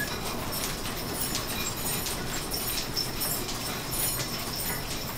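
Overhead line shaft running the shop's belt-driven lathes: flat belts and pulleys turning with a steady mechanical noise and an even, rhythmic clatter.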